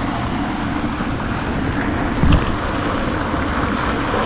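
Steady rushing of wind buffeting the microphone, with a short low thump about two seconds in.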